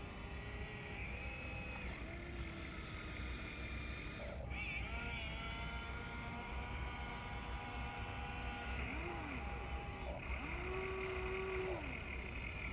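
Electric motors of a Huina 1593 RC excavator whining in short runs as the arm works and the upper body swings, the pitch sliding up and down with each movement. Two patches of high-pitched hiss come in, one near the start and one late on.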